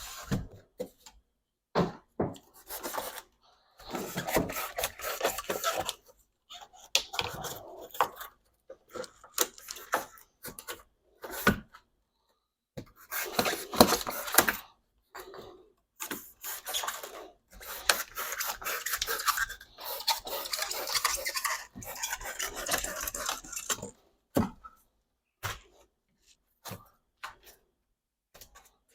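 Rubbing and scraping with scattered light knocks and clatter, in bursts of one to a few seconds with short pauses: rigid foam board and plywood being worked and fitted on a model railway base.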